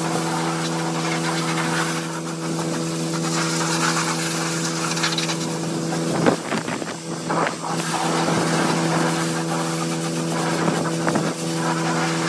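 A pressure washer spraying a semi-truck's chassis: the hiss of the water jet over a steady engine hum. The sound breaks up briefly and unevenly about six seconds in, and again near the end.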